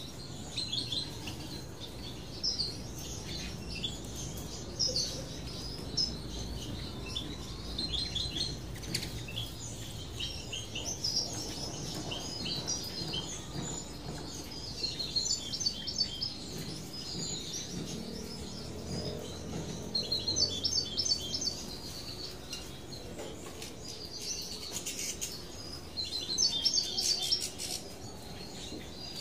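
Small songbirds chirping and twittering in short, quick bursts, on and off, with the loudest bursts in the last third. A steady low background hum runs underneath.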